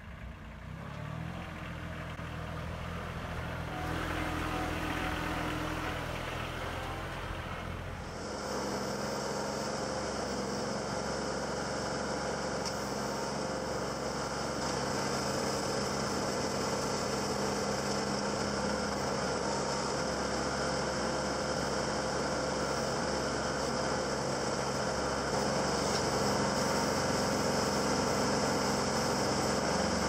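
Compact tractor engine running steadily while the tractor is driven and its backhoe digs. The sound changes abruptly about eight seconds in, then the engine runs on at a steady pitch.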